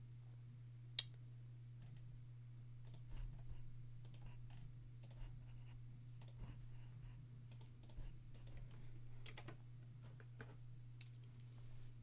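Computer keyboard typing and mouse clicks, faint and irregular, with one sharper click about a second in, over a steady low electrical hum.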